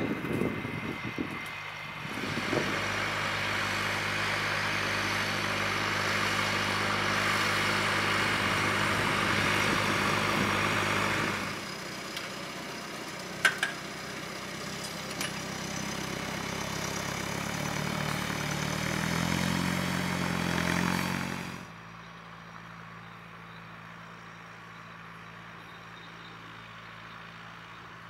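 Fendt 415 Vario TMS tractor engine running steadily under load while pulling a reversible mounted plough through soil. The pitch rises a little near 20 s, and then, about two-thirds of the way through, the sound drops to a quieter, more distant steady hum. There is a single sharp click just after the middle.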